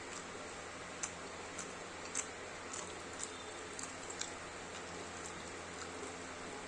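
Eating sounds: short, sharp mouth clicks and smacks of someone chewing a rice meal, about seven scattered through the first four seconds, over a steady background hiss.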